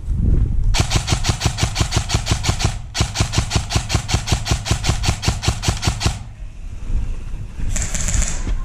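Airsoft gun firing a rapid, evenly spaced string of shots, about six a second, for about five seconds with one brief break, over a low rumble; a short hiss follows near the end.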